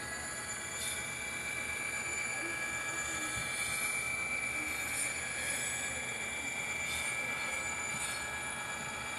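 HO-scale model freight train of intermodal trailer cars rolling along the track: a steady running noise with a thin high whine, and a few faint clicks.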